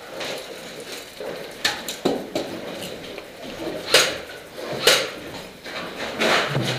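A handful of sharp, separate knocks and clacks over a low rustle, the two loudest about a second apart near the middle.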